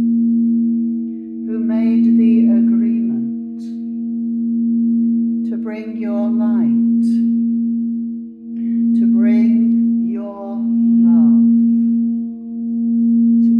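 Several frosted quartz crystal singing bowls sound together as their rims are rubbed with a wand. They make a steady hum of several held tones, swelling and dipping every few seconds. Over them a woman's voice sings wordless falling phrases, about five times.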